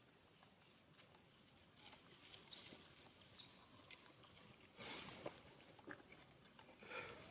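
Near silence with scattered faint clicks and one brief rustle about five seconds in.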